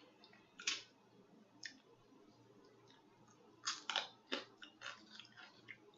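Close-up mouth sounds of someone eating: wet lip smacks and chewing, a single smack about a second in and another shortly after, then a quick run of smacks in the second half.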